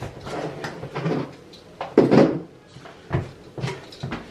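Irregular knocks and clicks of a plastic dryer receptacle and its wires being handled, the loudest sharp knock about two seconds in.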